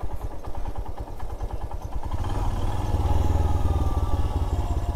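Single-cylinder motorcycle engine running as the bike is ridden, its steady pulsing growing louder about two seconds in.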